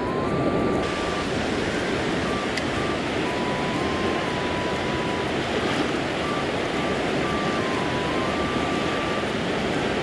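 Steady rushing of a fast-flowing stream, with white water pouring over a low weir upstream.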